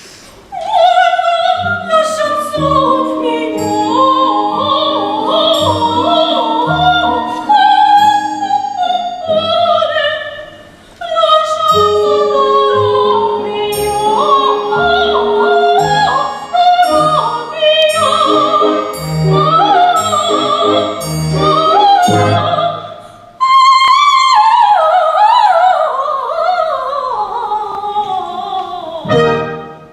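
Operatic singing in a high voice with instrumental accompaniment, breaking off briefly about eleven and twenty-three seconds in and ending just before the end.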